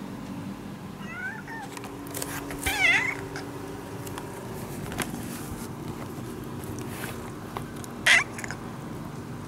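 Orange-and-white house cat meowing to ask for something: a couple of faint, chirping calls about a second in, a louder drawn-out meow around three seconds, and a short, sharp meow near the end.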